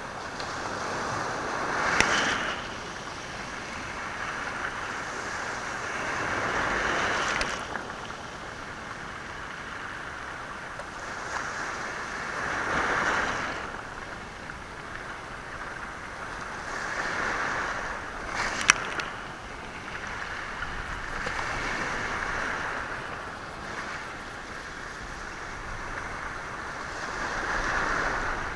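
Sea waves washing onto a stony shore, the surf swelling and ebbing about every five seconds. Two sharp knocks of stones striking together stand out, a couple of seconds in and again about two-thirds of the way through.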